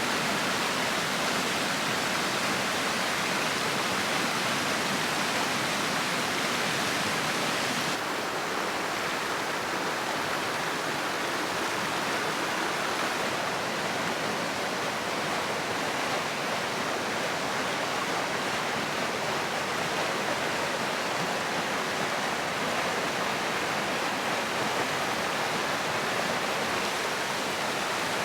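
River water rushing steadily. About eight seconds in, the sound shifts to a slightly duller tone.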